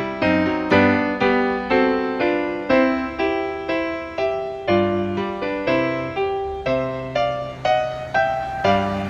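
Background piano music: notes struck at a steady, unhurried pace, each dying away.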